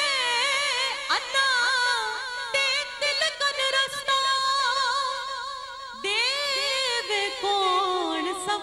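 A woman singing a Punjabi Sufi verse in long, drawn-out wavering notes with no clear words. The phrase ends and a new one begins with an upward slide about six seconds in.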